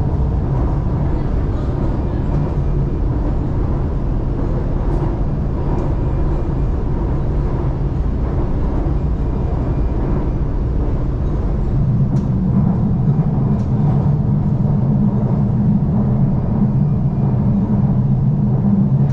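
Shanghai Metro Line 2 train running between stations, heard from inside the car: a steady rumble of wheels on rail and running gear. A low hum swells about twelve seconds in, with a few faint clicks along the way.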